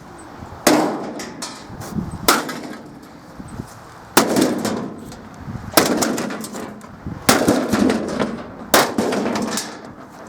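Pickaxe striking the sheet-metal top of a clothes dryer, six heavy blows roughly every one and a half seconds, each followed by a clattering ring of the panel, to knock the top loose.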